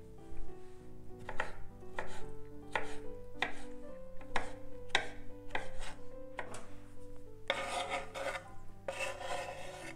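Chef's knife chopping pickled cucumbers on a wooden cutting board: about nine sharp strokes, roughly one every two-thirds of a second. Near the end comes a longer scraping as the diced cucumbers are slid off the board into a glass bowl.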